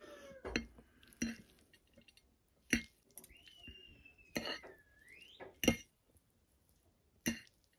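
Metal forks clinking and scraping against a plate while mixing instant noodles with sauce. About half a dozen separate sharp clinks, the loudest near three seconds and near six seconds in.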